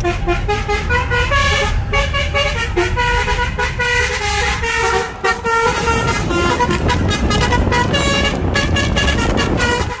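Basuri 'telolet' multi-tone horn playing a quick tune of short notes that step up and down in pitch, over the car's engine and road rumble.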